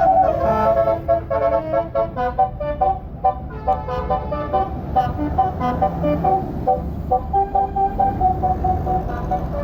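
Bus's basuri telolet musical horn playing a tune: a quick run of short toots stepping up and down in pitch, then longer held notes, over a low steady rumble.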